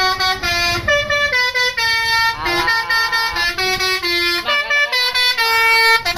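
A bus's basuri telolet musical air horn playing a melody, its loud pitched tone stepping from note to note several times a second, with one short pitch bend about halfway through.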